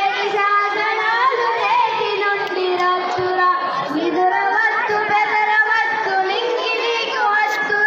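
Boys singing a song together into a microphone, in held, gliding notes that carry on without a break.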